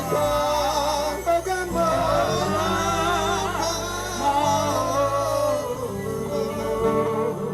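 Live gospel praise music: singing with a band, a steady bass line under wavering vocal melodies.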